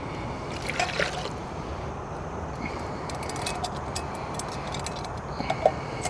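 Warm water poured from a small pot into a billy can of simmering chicken curry, with light metal clinks of pot and lid. A gas stove burner hisses steadily underneath.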